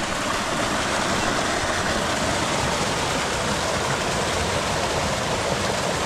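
Steady rush of flowing water from a volcanically heated river.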